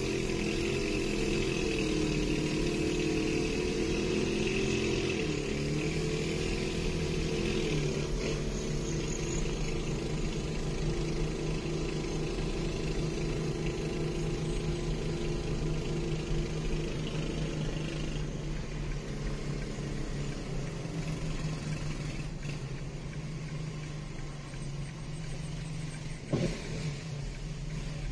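Kulong-kulong motorcycle-sidecar engine running under load as it tows the car, heard from inside the towed car's cabin over road noise. Its pitch wavers for the first several seconds, then holds a steadier, lower note. There is a brief knock near the end.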